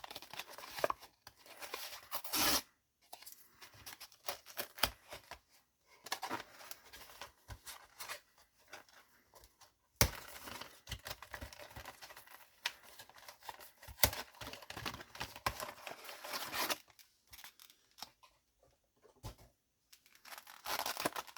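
Trading card box packaging being torn and unwrapped by hand: plastic wrap and cardboard tearing and crinkling in irregular bursts with short pauses, and a couple of sharp clicks about ten and fourteen seconds in.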